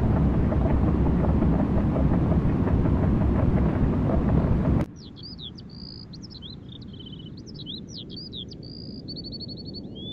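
A loud, deep rumbling noise that cuts off abruptly about five seconds in, giving way to small birds chirping and trilling over a faint background hum.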